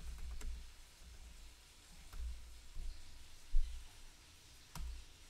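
Faint computer keyboard keystrokes: a few scattered sharp clicks, one louder about three and a half seconds in, over a low steady rumble.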